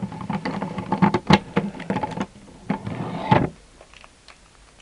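Plastic clicking and clacking of a Megaminx puzzle being turned by hand: a quick run of sharp clicks for about three and a half seconds, then it stops.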